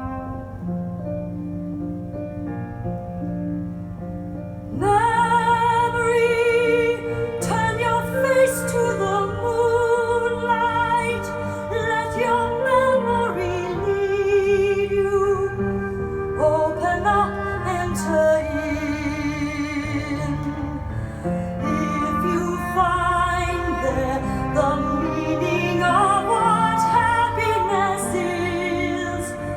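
Music played from a record on a VPI Prime turntable with a Soundsmith Zephyr MKIII cartridge. A soft instrumental opening gives way about five seconds in to a female operatic voice with wide vibrato over the accompaniment.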